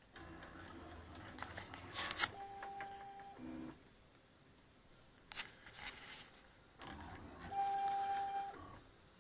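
Stepper motors of a MostlyPrintedCNC pen plotter moving the pen as it writes. Two spells of a steady whine, about a second each, with a few sharp clicks between them.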